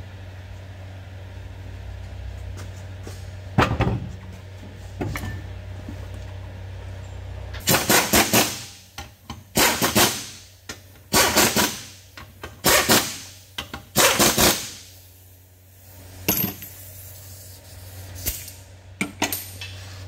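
Impact wrench run in five short bursts, hammering the lug nuts down on a rear wheel, after a couple of metallic knocks as the wheel is fitted to the hub.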